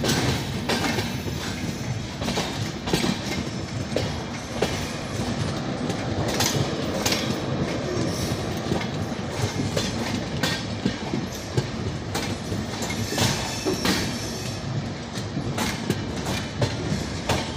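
Passenger coaches of an express train rolling past close by as it pulls into the station. The wheels clatter over the rail joints in irregular sharp clicks over a steady rumble.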